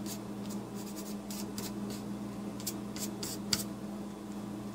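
Gesso being brushed and dabbed onto a paper card in short, irregular scratchy strokes, with one sharp tap about three and a half seconds in. A steady low hum runs underneath.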